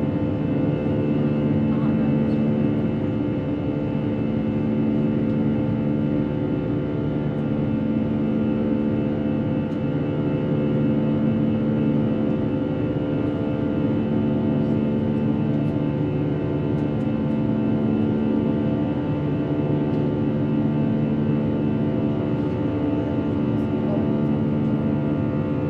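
Airbus A321's jet engines heard inside the passenger cabin, running steadily: a loud drone carrying several steady tones, with a slow beating pulse in the lower tones.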